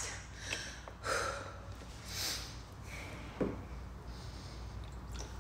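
Faint sounds of a person drinking from a large plastic water jug, with short breaths between sips and one brief sharp sound about three and a half seconds in; the drinker is out of breath after dancing.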